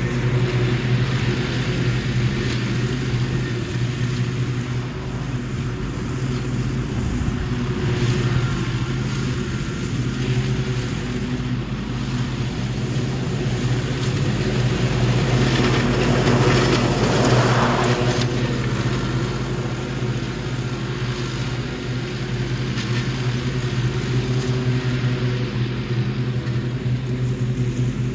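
Riding lawn mower engine running steadily as the mower drives over and mulches dry leaves. It grows louder as it passes closest, about two-thirds of the way through, then fades as it moves off.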